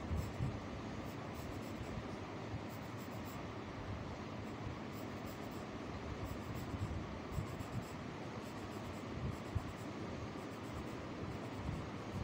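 Graphite pencil scratching across drawing paper in strokes as lines are drawn, over a steady background hiss.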